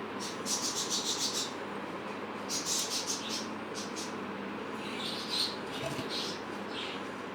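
Birds chirping in quick runs of short, high notes, with pauses between the runs, over a steady low hiss.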